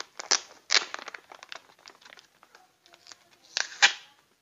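Clear plastic bags of dried bajakah root pieces crinkling and rustling as they are handled, in irregular bursts, the loudest near the end.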